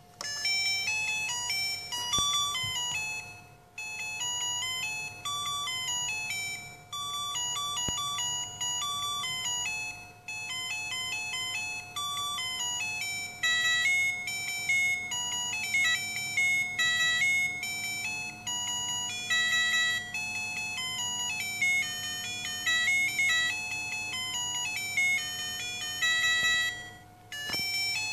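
Electronic beeping tune from a sound chip, a melody of short buzzy notes like a ringtone, with brief breaks about four seconds in and near the end. A faint steady hum runs underneath.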